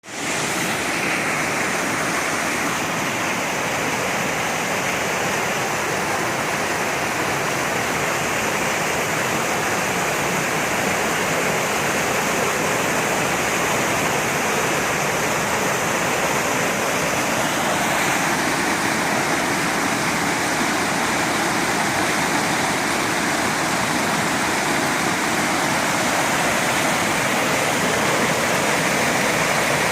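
Steady rush of flowing water, a continuous even noise with nothing else over it; its tone shifts slightly a little past halfway.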